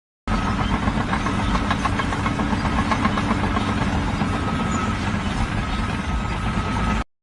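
An engine running steadily. It cuts in just after the start and cuts off suddenly near the end.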